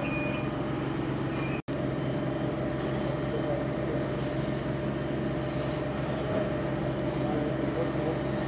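Fire-service vehicle engines running steadily, an even low hum with a brief cut-out about one and a half seconds in.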